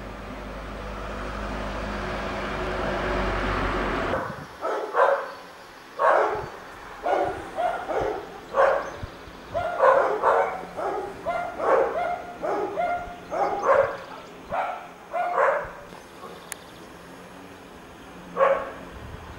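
A dog barking repeatedly, in short loud barks one after another for about twelve seconds, then a single bark near the end. Before the barking, a rising rush of noise with a low rumble cuts off suddenly about four seconds in.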